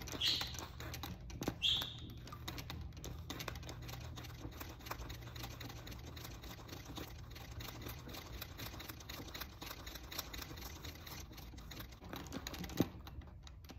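Treadle sewing machine stitching free-motion: the needle and hook mechanism make a fast, steady clicking. One sharper click comes near the end.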